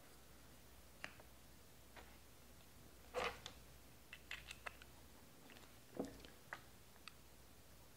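Faint clicks and small knocks from a fishfinder ball-and-socket mount base being handled and turned: a scattered handful, the loudest about three seconds in and again about six seconds in.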